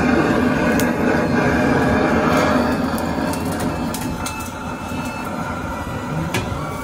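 Long-nozzled gas torch blowing its flame into a pot of charcoal to light it: a steady rush of gas and flame that grows somewhat quieter about three seconds in, with a few light clicks.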